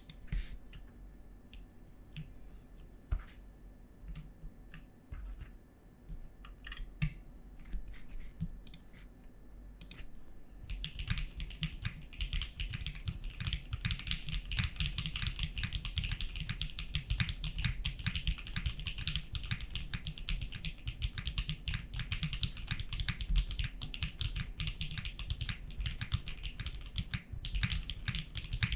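Custom OTD 356.2 mechanical keyboard with Nixies switches, a polycarbonate half plate and G81-3100 keycaps being typed on. For about the first ten seconds there are scattered single keypresses, then fast continuous typing for the rest.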